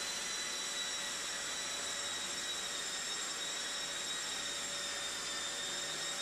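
Festool Planex drywall sander and its dust-extractor vacuum running steadily while sanding a plasterboard ceiling: an even rushing hiss with a constant high whine.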